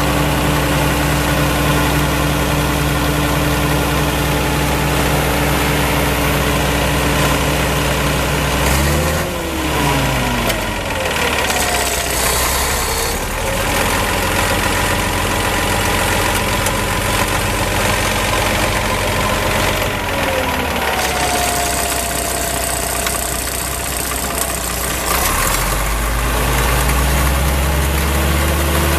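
Caterpillar D5 crawler dozer's diesel engine running, its speed changing about nine seconds in and again later before it settles back to a low idle near the end.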